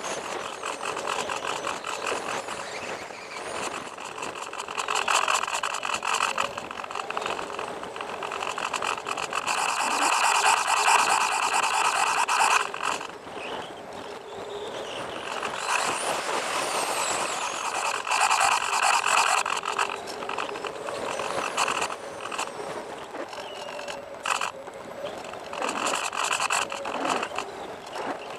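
Brushless electric motor and propeller of a Bixler RC foam plane whining in flight, with rushing airflow, rising and easing with the throttle, loudest about a third of the way in and again a little past the middle.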